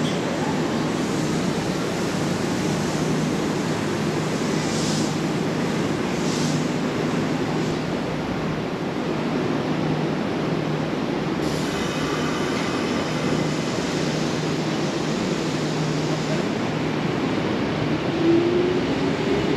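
Kintetsu electric train at the station platform, a steady rumble of the train and its running gear. A short whine comes about twelve seconds in, and a short rising tone near the end.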